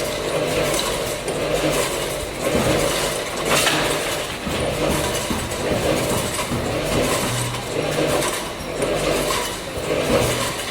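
Automatic bottle weighing, filling and capping line running: a steady machine hum that swells every couple of seconds with the machines' cycle, with a few brief clicks.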